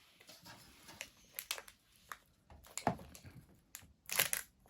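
Scattered clicks and crinkles of plastic toy packaging being worked open by hand, with a couple of louder snaps about three and four seconds in.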